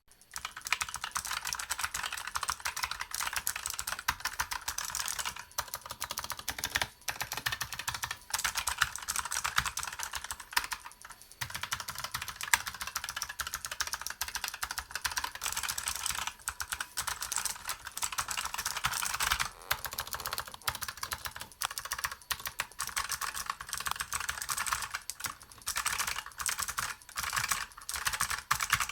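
Fast, continuous typing on a Razer Huntsman keyboard's optomechanical switches: rapid clicky keystrokes with a few brief pauses, as a sound test of the switches.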